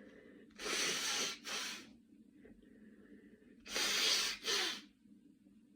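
A person with a cold blowing a congested nose: two hard blows, a longer one then a short one, and the same pair again about three seconds later.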